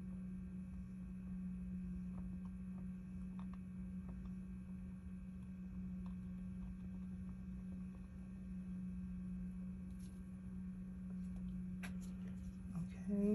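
A steady low hum with faint scattered ticks, and a brief louder sound right at the end.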